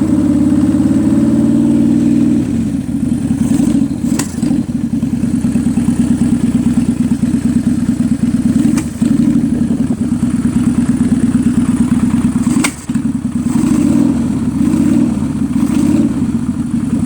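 Kawasaki Vulcan 800's V-twin engine idling with a rapid uneven beat, a little faster for the first couple of seconds, broken three times by a sharp pop. The pops are the misfire the owner traces to the carburetor, spitting back and slapping the air filter assembly.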